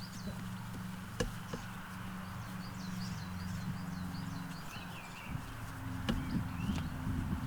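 A small bird calling in quick series of short, high chirps, with a few sharp knocks and a steady low hum underneath.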